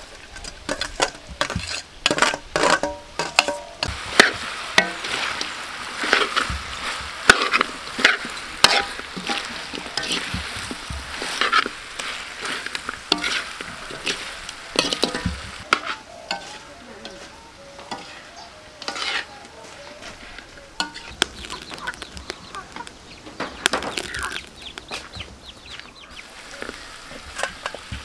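Chicken feet and shredded galangal stir-frying in a large metal wok: a metal slotted spatula clinks and scrapes against the wok over a steady sizzle.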